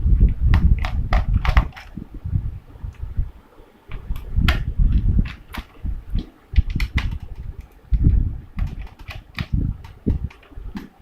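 Laptop being taken apart by hand: an irregular run of sharp plastic clicks and taps, with low thumps from handling the case.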